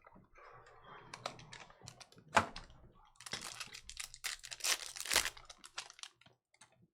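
Trading card packaging being opened by hand: a sharp crack about two and a half seconds in, then a stretch of crinkling and tearing of the pack wrapper with scattered clicks, dying away near the end.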